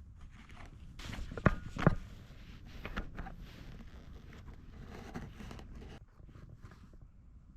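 Dry twigs being handled and broken: rustling and scraping, with two loud sharp snaps about a second and a half in and another near the three-second mark.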